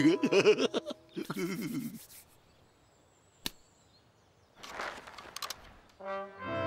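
A short run of cartoon sound effects: a wavering pitched sound for the first two seconds, a single sharp click in the quiet middle, then a brief rushing whoosh with a few clicks about five seconds in.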